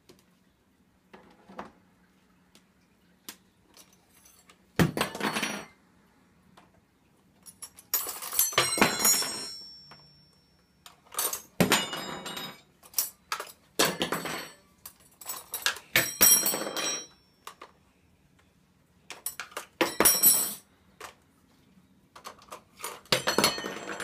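Metal cutlery clattering and ringing as a Moluccan cockatoo pulls spoons and forks from a dishwasher's silverware basket and throws them onto a hard floor: about seven separate clatters, spaced a second or more apart.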